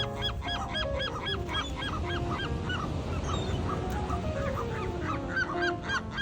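A flock of seagulls calling over one another in quick, repeated squawks, with background music underneath.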